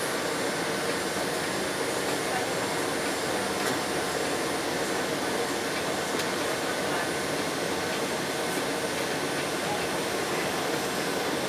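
Steady rushing noise inside a Boeing 777-200ER's cabin, the even hiss of the air conditioning and aircraft systems with a faint hum, and nothing standing out.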